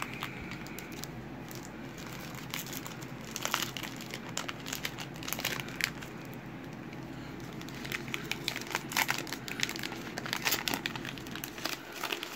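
Foil wrapper of a Panini 2020 Legacy football card pack crinkling as it is handled and torn open. The crinkling comes in two spells, one about three seconds in and a longer one from about eight seconds in.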